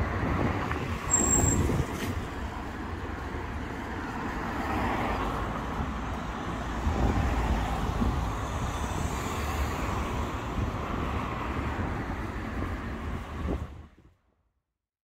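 Road traffic: cars and other vehicles passing on a wet street, a steady rumble of engines and tyres that swells as vehicles go by. A brief shrill squeal about a second in marks the loudest moment, and the sound cuts off abruptly near the end.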